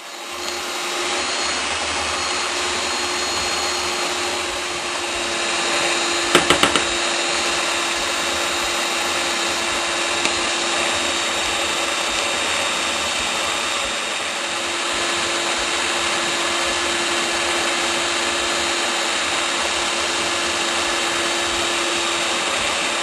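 Ufesa electric stand mixer running steadily with a constant hum, its beaters whipping egg-white meringue as blue food colouring is mixed in. A few quick clicks sound about six seconds in.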